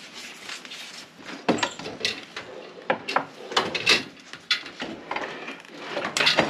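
Irregular knocks and clunks of a Ducati 999S front wheel being worked free and lifted out from between the fork legs, with sharp clatters near the middle and again near the end.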